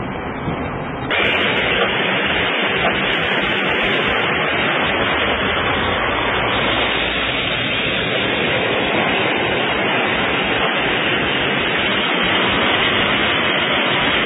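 Steady rushing water noise from a flooded street, an even hiss with no letup, stepping up in level about a second in.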